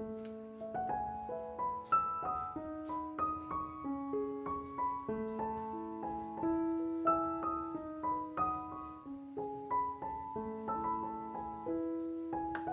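Background piano music: a gentle melody of single held notes over a steady accompaniment.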